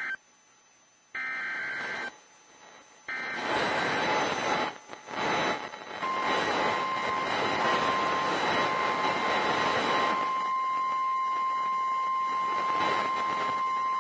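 NOAA Weather Radio emergency alert coming through a radio receiver. It opens with the SAME digital header's short, buzzy data bursts, followed by hissing static. About six seconds in the steady single-pitch warning alarm tone starts and holds over the static. The sequence announces a tornado warning.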